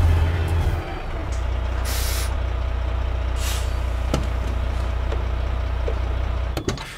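Volvo refuse truck's engine running with a steady low rumble as it rolls up and stops, with short hisses of the air brakes about two seconds and three and a half seconds in. Near the end the rumble drops away, followed by a couple of clicks.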